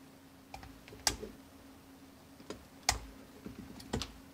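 Small clicks and taps of fingers working cable connectors loose from a circuit board and handling the plastic housing: half a dozen separate sharp clicks, the two loudest about two seconds apart.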